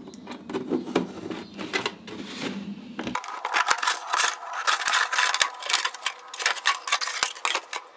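Scissors cutting through a plastic milk jug: a rapid run of snips and crackling of the stiff plastic, sparse at first and dense and continuous from about three seconds in.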